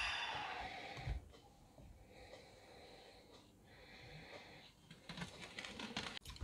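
Air hissing back into an evacuated resin-stabilising vacuum chamber through its release valve, fading out within about a second as the pressure equalises. Then faint handling sounds on the acrylic lid.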